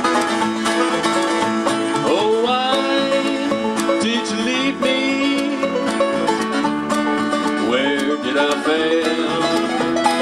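Acoustic bluegrass band playing an instrumental break: five-string banjo picking over a strummed acoustic guitar and upright bass, with sliding notes in the lead.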